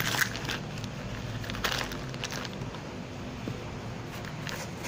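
Plastic wrapping and bubble wrap crinkling as they are handled, in a few short rustles, over a steady low hum.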